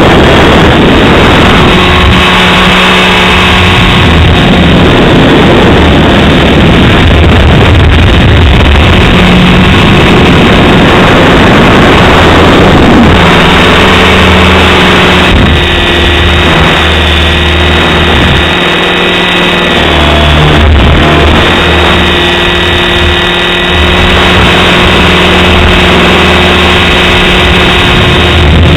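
Align T-Rex 550 electric RC helicopter flying, its motor and rotors giving a steady whine that shifts in pitch a little around the 13 and 16 second marks. Heavy wind rumble buffets the microphone throughout, the wind gusting to about 30 mph.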